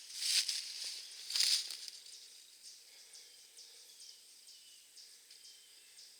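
Two short breathy rushes about a second apart, like hard breathing, then only a faint outdoor background with faint ticking.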